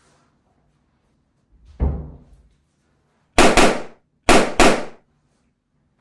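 Balloons popping: four sharp, loud bangs in two quick pairs about a second apart, after a duller thud nearly two seconds in.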